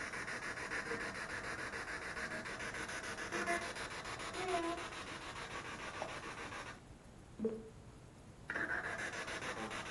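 Spirit box sweeping rapidly through radio stations: a steady, choppy hiss of static with brief snatches of broadcast sound. It cuts out for about two seconds near the end, then starts again.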